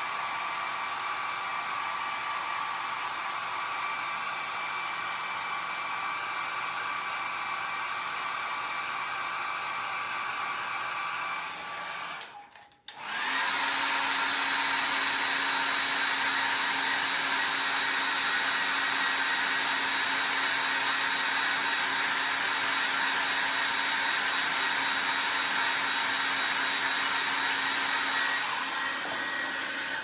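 Hair dryer blowing steadily, drying a freshly brushed ink wash. About twelve seconds in it cuts out briefly, then comes back on louder and runs steadily again.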